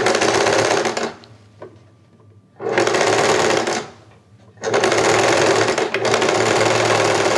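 Electric domestic sewing machine stitching piping onto fabric in three runs with short pauses between, the last run the longest.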